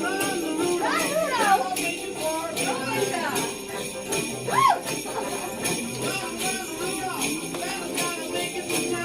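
Many small jingle bells shaken by hand in a group, jangling steadily, with voices singing along under them.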